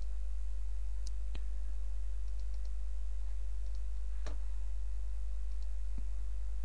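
Computer mouse clicks, a few sharp ones (the loudest about a second and a half in and just after four seconds) with a few fainter ticks between, over a steady low electrical hum.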